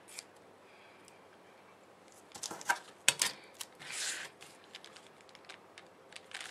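A paper planner and washi tape being handled on a craft mat: a run of sharp clicks and taps about two seconds in, then a short papery swish about four seconds in as the planner is lifted and turned, and a few light ticks after.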